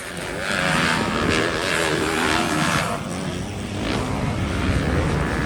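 Motocross dirt bike engines running hard during a race, their pitch rising and falling with the throttle.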